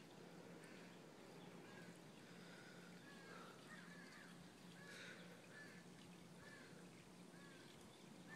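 Faint animal calls: many short, high, arching whines or chirps, one every half second to a second, over a low steady hum.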